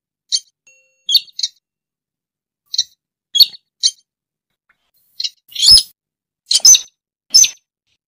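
Slaty-breasted rail (sintar) calling: short, sharp, high call notes, singly and in quick pairs at irregular gaps, louder in the second half.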